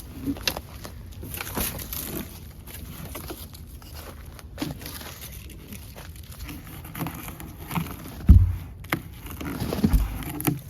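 Crop tent cover crinkling and rustling as it is pulled and handled, with scattered knocks and a heavy thump about eight seconds in.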